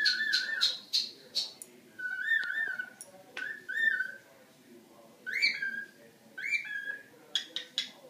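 Cockatiel whistling a song: short warbling phrases, repeated roughly every second or so, with a few sharp chirps in the first second or two.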